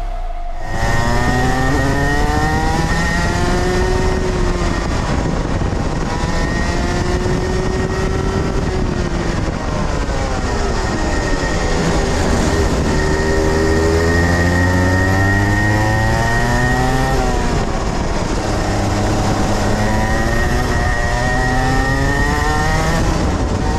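Rotax Max 125 cc two-stroke kart engine heard onboard at racing speed, its revs climbing and dropping several times, with deep drops near the middle and about three-quarters of the way through. A steady hiss runs underneath.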